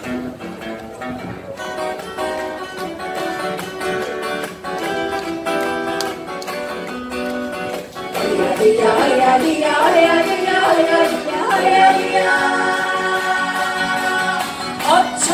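An ensemble of acoustic guitars playing a song's instrumental opening. Singing comes in over the guitars about eight seconds in, and the music gets louder.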